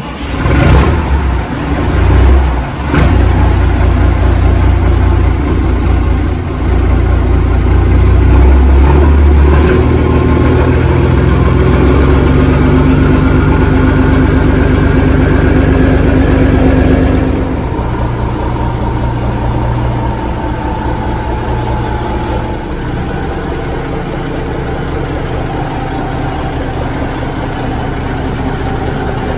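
Caterpillar 3406 inline-six turbo diesel in a Peterbilt 359 firing up and running through 8-inch chrome straight-pipe stacks. It catches abruptly and runs loud. About two-thirds of the way through it drops to a quieter, steadier idle.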